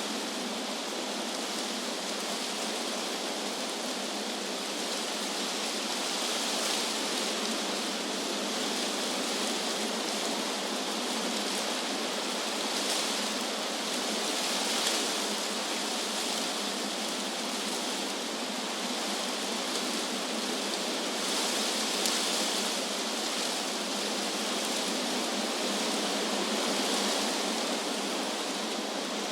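Wind blowing through trees, a steady rushing hiss of leaves with slight gusty swells every few seconds.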